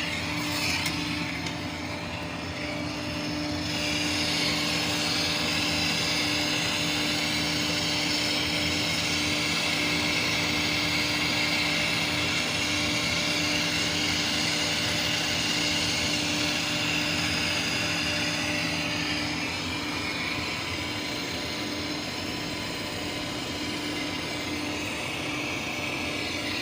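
Refrigeration vacuum pump running steadily, evacuating an air conditioner's refrigerant lines after a leak was brazed: a constant motor hum under a hissing rush.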